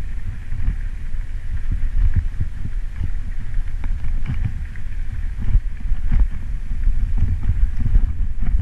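Wind buffeting the microphone as a mountain bike rolls down a rough gravel and rock road, making a loud low rumble. Sharp rattles and knocks come from the bike jolting over the stones, several of them in the second half.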